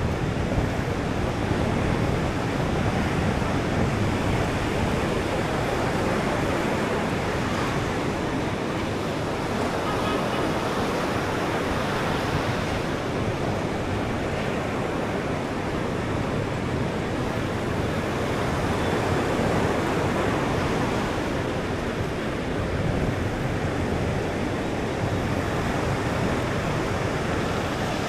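Ocean surf breaking on a sandy beach: a steady rush of waves that swells and eases slightly.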